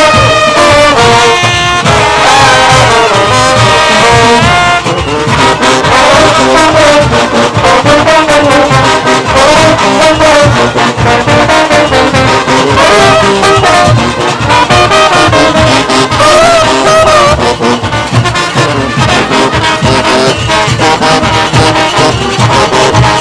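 Junkanoo brass section of trombones, trumpets and sousaphones playing a melody together, loud and continuous, over a driving beat.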